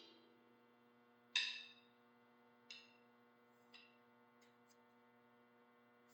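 Drum-kit cymbal struck with a stick in separate single hits, each softer than the last: a light hit about a second and a half in, softer ones near three and four seconds, then faint taps. A faint steady electrical hum lies underneath.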